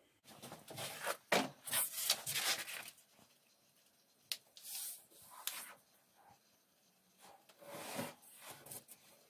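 A sheet of paper being folded by hand and its crease rubbed flat against a wooden bench: rustling and rubbing in three bouts.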